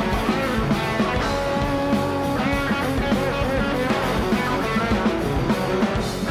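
Rock music with guitar and drums, a steady beat throughout.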